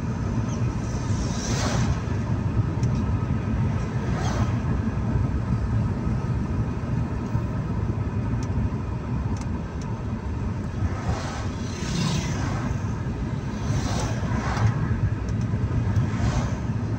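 Steady low rumble of a car driving along a road, heard from inside the cabin, with the brief whoosh of oncoming vehicles going past several times.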